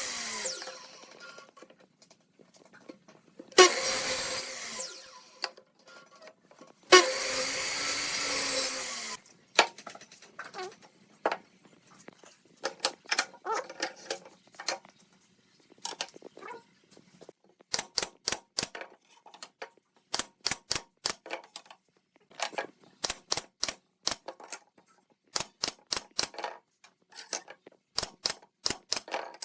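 A power tool runs in three short bursts, each spinning up and winding down. Then come rapid clusters of sharp wooden taps and clicks, a few a second, through the rest.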